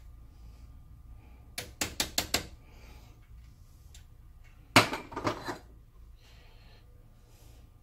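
A mallet tapping the cross-slide feed screw assembly of a Sheldon lathe into place: five quick metallic taps, then one harder knock about five seconds in, followed by a few quieter clinks.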